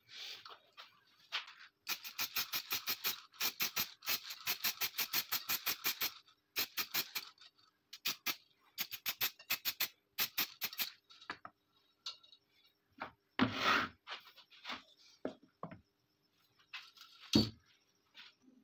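Aerosol spray paint can being shaken, its mixing ball rattling in quick runs of strokes with short pauses. This is followed by one short spray hiss and, near the end, a single knock.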